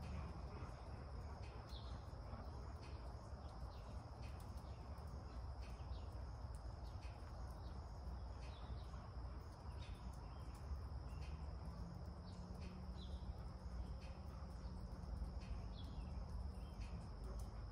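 Quiet background ambience: a steady high-pitched insect drone over a low rumble, with a few faint short chirps scattered through.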